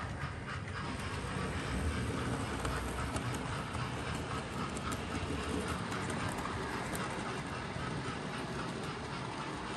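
Hornby OO gauge model locomotive hauling a goods train along the layout's track: a steady running rumble with light clicks of the wheels on the rails.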